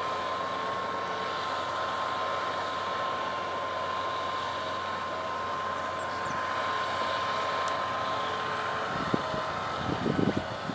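John Deere 230C LC excavator running as it digs and raises its boom: a steady engine drone with a thin, steady high whine over it. A few short thumps come near the end.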